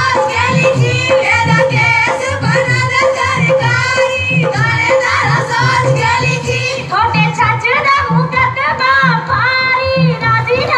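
Women singing a Punjabi folk song (giddha boliyan) through a PA system, over a dholki drum beating a steady rhythm.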